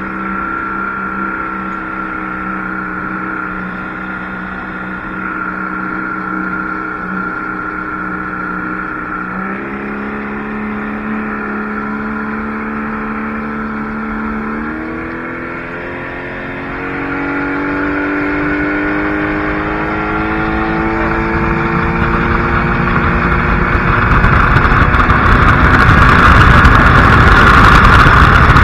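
Motorboat engine running steadily, then throttled up in two steps about a third and halfway through, its pitch climbing as the boat gathers speed. A rushing noise builds and grows louder toward the end.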